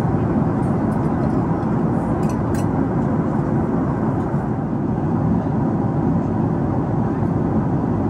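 Steady cabin noise of a Boeing 747-8 in cruise flight: an even rush of airflow and engine noise, heard from inside the passenger cabin.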